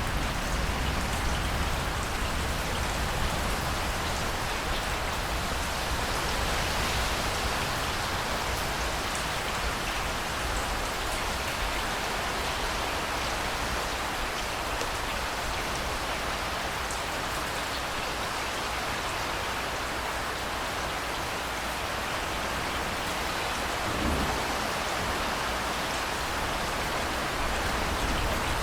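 Steady rainfall pattering on a surface, with scattered individual drops ticking and a brief low thump about 24 seconds in.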